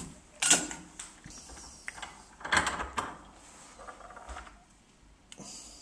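Clicks and rattles of a small bench vise being loosened and a metal RCA plug on a cable being handled: a short clatter about half a second in and a longer one around two and a half seconds, then fainter rustling.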